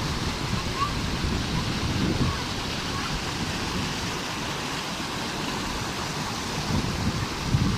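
Water babbling and rushing over stones in a stream, a steady hiss, with gusts of wind rumbling on the microphone.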